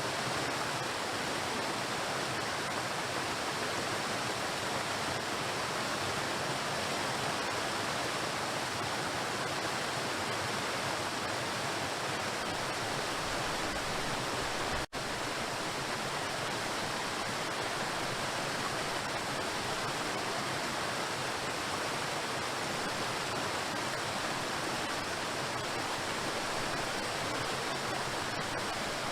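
Waterfall: a steady, even rush of water falling onto rocks, with a momentary break about halfway through.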